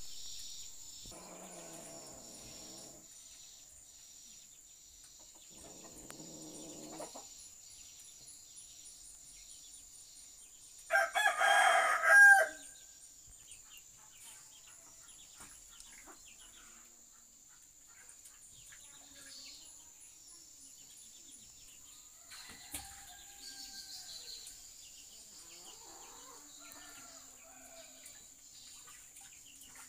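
A rooster crowing: two fainter crows in the first seven seconds, then one loud crow about eleven seconds in. A faint steady high whine runs under it.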